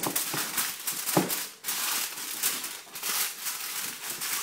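Aluminium foil crinkling and rustling as hands press and smooth it tightly over a pudding bowl, in irregular crackly bursts.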